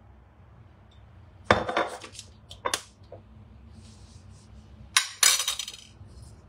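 Kitchen utensils clattering: a few separate knocks and clinks as a spoon, a glass bottle and a ceramic bowl are set down and handled. The loudest knocks come about a second and a half in and again around five seconds in.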